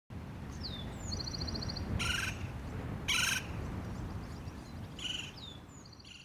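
Birds chirping over a steady low rumble of outdoor background noise. Twice there is a short falling whistle followed by a rapid high trill, with brief bursts of chirping in between, and the whole fades out near the end.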